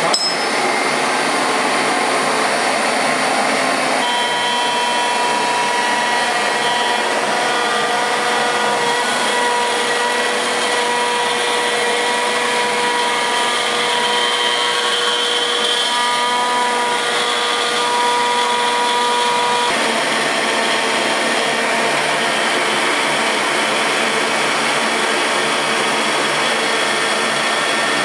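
CNC milling machine working aluminum: a steady rushing machine noise throughout. A high whine of several steady tones comes in about four seconds in and cuts off suddenly about twenty seconds in.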